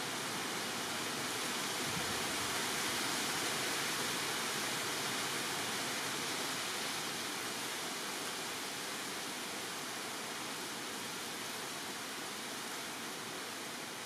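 Steady, even rushing hiss with no bird calls, swelling slightly a few seconds in and easing off toward the end.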